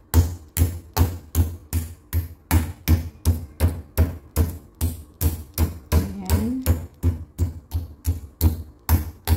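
Wooden meat mallet pounding raw chicken breasts on a wooden cutting board, steady thuds about two and a half a second, flattening the thick meat so it cooks through tender.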